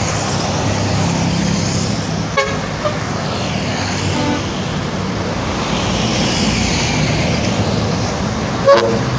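Road traffic passing, a steady rush of engines and tyres, with a few short horn toots a couple of seconds in and a single, louder short honk near the end.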